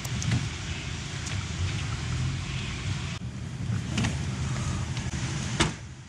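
Steady low rumble inside a car's cabin, with a faint knock about four seconds in and a sharp click shortly before the end.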